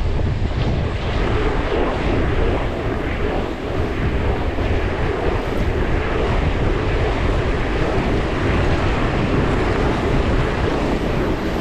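Steady rush of wind buffeting the microphone over a low rolling rumble while skating along the street on roller skates.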